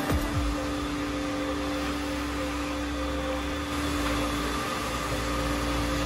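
Wet vacuum's motor running steadily with a constant hum while its floor wand sucks up cleaning slurry from a tiled floor.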